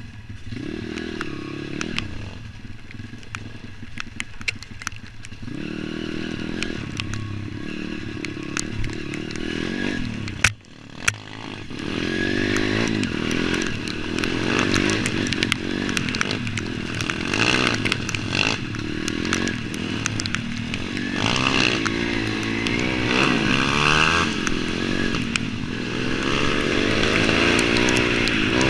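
Single-cylinder four-stroke pit bike engine revving up and down as it is ridden over a rough dirt trail, picked up by a camera on the bike, with clatter from bumps. A sharp knock about ten and a half seconds in.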